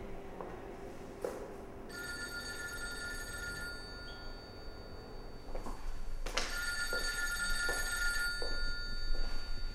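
A telephone ringing twice, each ring a steady tone lasting about three seconds, with a pause of about a second between them. Footsteps of hard-soled shoes click on a stone floor.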